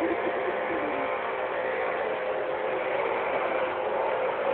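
Upright vacuum cleaner running, its motor giving a steady hum.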